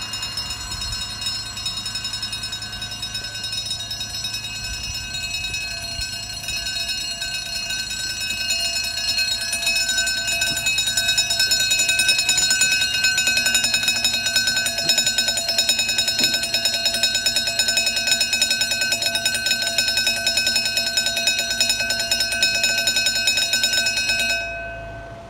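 Level crossing warning alarm sounding: an electronic tone pulsing very rapidly, growing louder about nine seconds in, while the barriers lower. It cuts off suddenly near the end, once the barriers are fully down.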